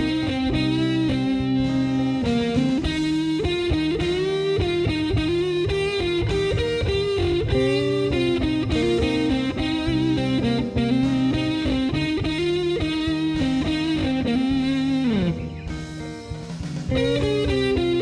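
Instrumental break of a song: an electric guitar plays a lead line of sustained, bent notes over steady low notes. About fifteen seconds in, the lead slides down and the music drops quieter for a second or two before the full sound comes back in.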